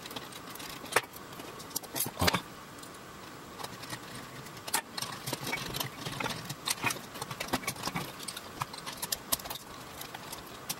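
Small plastic parts of a toy RC excavator clicking and knocking as it is reassembled by hand, with its plastic link track being pressed onto the undercarriage. A few sharper clicks in the first few seconds, then a denser run of light clicks in the second half.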